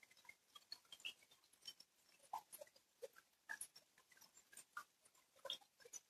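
Rain, heard faintly as irregular drips and taps of falling drops, several a second, over a light hiss.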